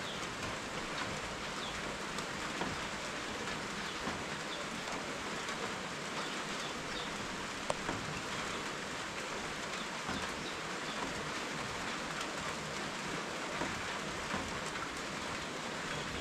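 Steady rain falling, with scattered drops tapping distinctly over the even hiss and one sharper tick about halfway through.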